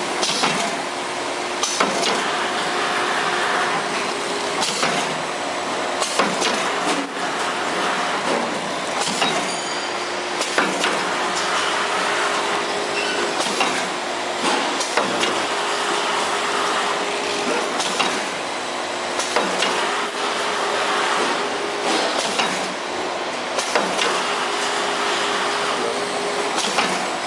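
Horizontal flow-wrap packaging machine running, a steady mechanical noise with a faint hum and short knocks every second or two.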